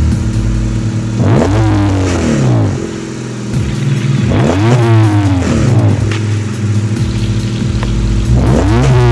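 Honda Civic four-cylinder engine idling through a Tanabe aftermarket muffler and revved three times, each rev climbing quickly and dropping back to idle, the third starting near the end. Heard through a cell phone microphone, which makes the exhaust sound muffled.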